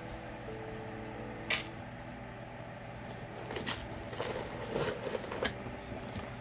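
Costume jewellery being handled: one sharp click about a second and a half in, then a run of small clicks and rattles, over a steady low hum.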